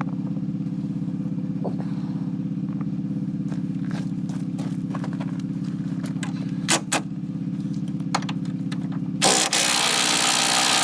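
A motor runs steadily with a low, fast-pulsing hum, with a few sharp metal clicks from tool handling. About nine seconds in, a power tool starts and runs loudly for about two and a half seconds.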